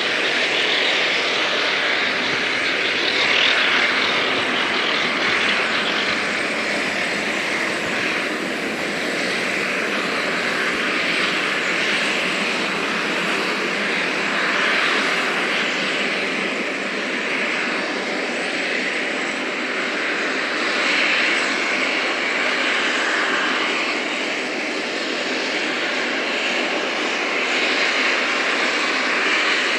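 Steady hiss of escaping steam from steam locomotives, swelling and easing every few seconds without any chuffing beat.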